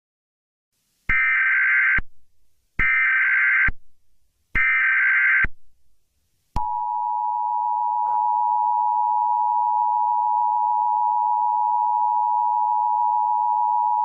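Emergency Alert System header: three bursts of buzzing SAME digital data, each about a second long, then about six and a half seconds in the steady two-tone EAS attention signal starts and holds.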